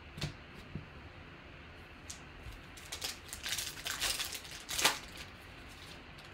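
Foil wrapper of a 2018 Panini Contenders basketball card pack crinkling and tearing as it is ripped open by hand. There are a few light rustles first, then a dense cluster of crackling about three seconds in, loudest just before five seconds.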